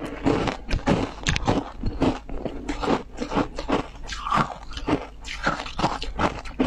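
Crunching and chewing of a slab of hard ice topped with passion fruit pulp, bitten and ground between the teeth: many sharp, irregular crunches one after another.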